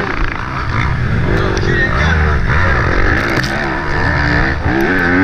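Yamaha YZ250F four-stroke single-cylinder motocross engine revving hard under racing load, its pitch repeatedly rising and falling through throttle changes and gear shifts. Heard onboard, from the rider's helmet camera.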